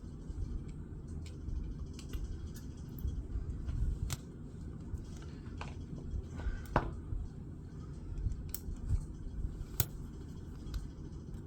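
Small parts of a Nitecore P18 flashlight being handled and fitted back together: scattered light clicks and taps, with one sharper click about two-thirds of the way through and another near the end.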